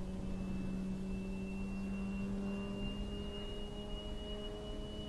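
Electric RC model airplane flying: a steady propeller drone with a high brushless-motor whine above it, both rising slowly in pitch. It is a 2100 mm fibreglass-and-balsa Cessna 182 Skylane driven by a brushless motor on a 6S LiPo pack.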